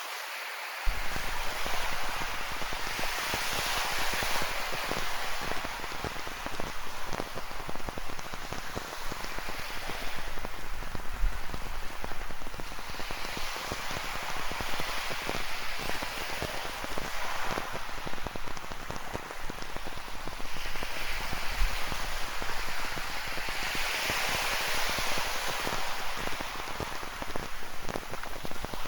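Rain falling close by, a dense spray of separate drop hits, over the hiss of ocean surf that swells and ebbs every several seconds. The sound starts abruptly about a second in.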